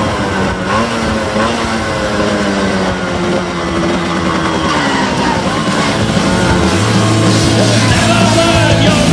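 Tomos 14M moped's small two-stroke engine running under way, its pitch rising and falling a little. About seven seconds in, rock music comes in over it.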